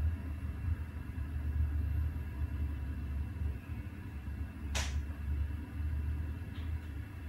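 Low, steady rumble of idling diesel multiple units, muffled as if played back from a VHS tape, with one short hiss about five seconds in.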